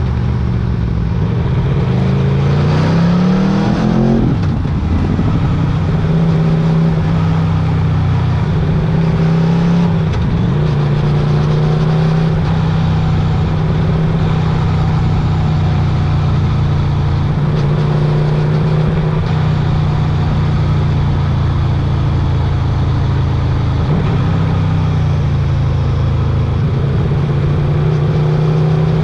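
Motorcycle engine on the move: it revs up over the first few seconds, then holds a steady cruising pitch with small rises and dips, and starts revving up again near the end.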